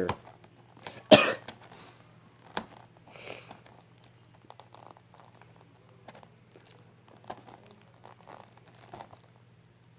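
Plastic shrink wrap on a DVD case crinkling and crackling in faint, scattered bits while it is picked at to open it, with one loud cough about a second in.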